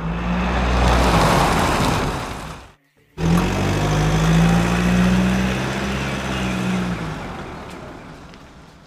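Truck engine sound effect running in two stretches, with a short break about three seconds in. The second stretch fades out near the end.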